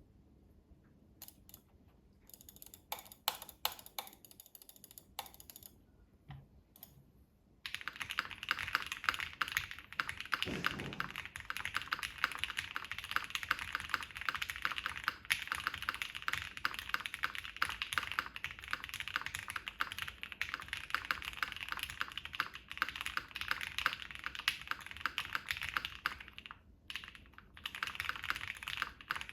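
Typing on an ai03 Vega mechanical keyboard with Gateron Ink linear switches: a few scattered keystrokes at first, then fast continuous typing from about a quarter of the way in, with a brief pause near the end.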